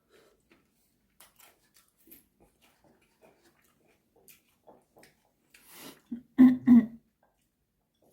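Quiet chewing and mouth clicks of someone eating fried chicken, then a sharp intake of breath and two short, loud coughs in quick succession.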